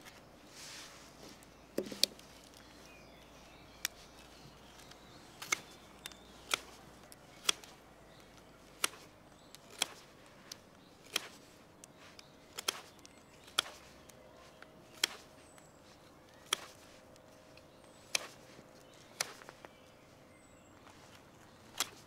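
Swiss Army knife blade (Victorinox Huntsman) shaving thin cuts from a carved wooden fork's head to flatten it, each stroke a sharp snap of wood, about once a second.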